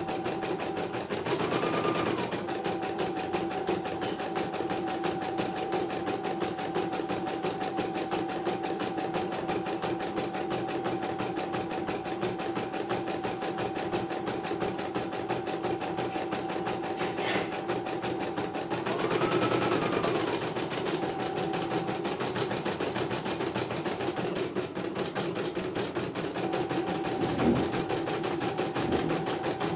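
CNY computerized embroidery machine stitching a design: a steady, rapid run of needle strokes over the motor's hum. It is broken twice by a brief rising-and-falling whine.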